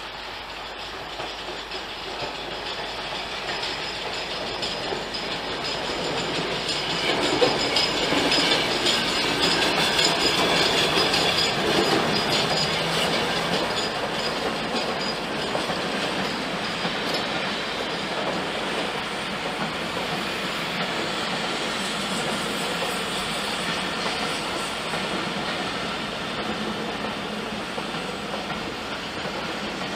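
LMS Jubilee class 4-6-0 steam locomotive 45596 'Bahamas' running past on the platform road, followed by its train of coaches rolling by. Loudest as the engine goes past, about seven to twelve seconds in, then a steady rumble of coaches.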